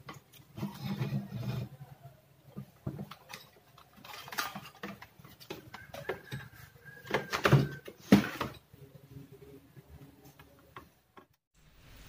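Handling noise from a TV's circuit board and its wiring as the board is turned over and set back into the chassis: scattered knocks, scrapes and rustles, loudest about four and eight seconds in.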